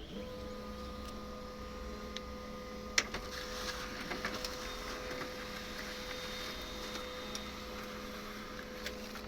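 HP LaserJet M1005 laser printer running a print job: a steady motor-and-gear hum starts at once, with one sharp click about three seconds in and a few seconds of paper feeding through. It runs without its earlier abnormal noise, now that the jammed object has been removed.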